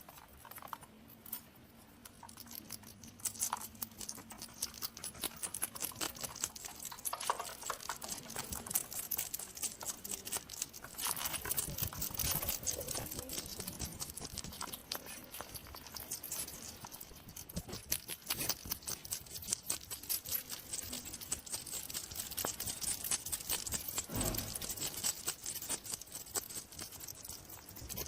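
Hedgehog making a dense run of quick small clicks and rustles, growing a little louder about eleven seconds in, with a single low thump near the end.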